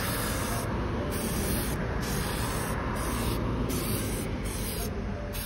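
Aerosol can of white Plasti Dip rubber coating spraying, a continuous hiss as it is swept over the propellers.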